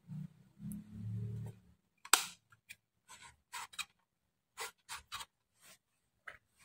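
Plastic control knob being pressed onto the shaft of a Taffware V8S sound card and turned: a sharp click about two seconds in, then a string of small clicks and ticks from handling the knob and the unit. A low hum runs through the first second and a half.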